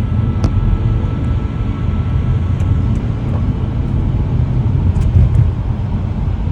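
Steady low rumble of a car driving, road and engine noise with a few faint ticks.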